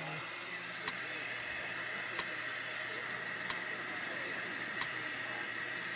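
T3 Featherweight 2 blow dryer running steadily: an even rushing hiss of air with a steady high whine, and faint ticks about every second and a bit.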